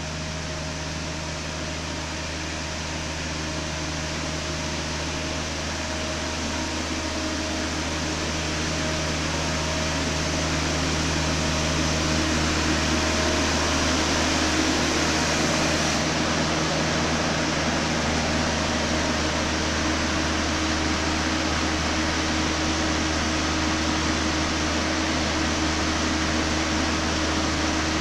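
IDM Fumimatic horizontal greenhouse sprayer running, a steady whirring hum of its turbine fan blowing spray mist, growing louder over the first dozen seconds as the machine comes closer and then holding level.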